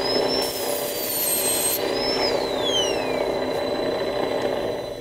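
High-pitched whine of an NSK high-speed handpiece spinning a carbide end mill against a rotating diamond lap, grinding the cutter down to a needle point. About two seconds in, the whine falls steeply in pitch as the handpiece winds down, over the steady hum of the VFD-driven lap motor.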